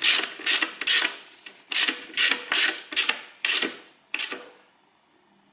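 Socket wrench ratcheting in quick short strokes, about a dozen rasping clicks roughly three a second, as it runs the drain plug back into an automatic transmission oil pan. The strokes stop about four seconds in.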